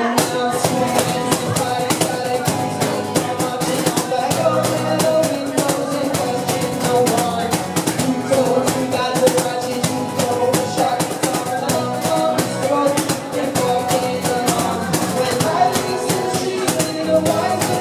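Live band music: strummed acoustic guitars over a steady percussion beat.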